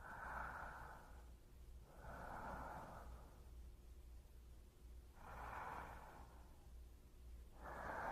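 Slow, soft human breaths close to a binaural microphone: four breaths of about a second each, in two pairs with a longer pause between them.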